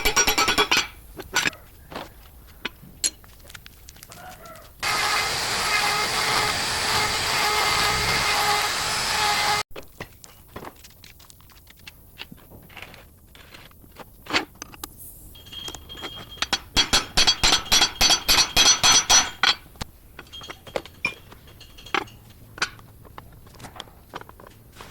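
Metal clinks and knocks of heavy-machinery repair work. For about five seconds, starting some five seconds in, a loud steady machine noise runs and then cuts off sharply. Later comes a rapid run of ringing metal strikes, about six a second.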